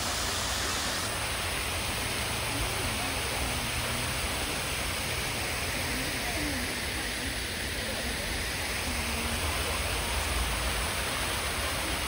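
Fountain water jets spraying in arcs and splashing down onto a stepped channel of small cascades, a steady rush of falling water.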